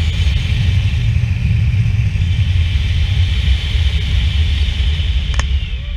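Wind from a tandem paraglider's flight buffeting the action camera's microphone: a loud, steady low rumble with a hissing higher band. A single click comes near the end.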